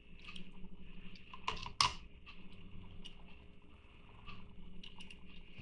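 Light, irregular clicks and taps of small hard objects being handled, with one sharper click a little under two seconds in, over a faint steady hum.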